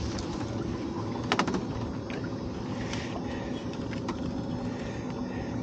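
Steady low hum of an idling boat engine, with a quick cluster of sharp clicks about a second and a half in.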